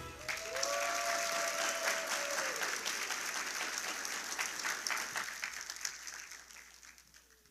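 Audience applauding at the end of a song, the clapping dying away over the last two seconds or so. A held tone sounds over the clapping in the first couple of seconds.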